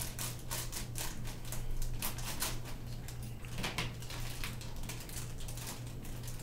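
Plastic packaging being torn open and handled: a quick, irregular string of crinkles and clicks, over a steady low hum.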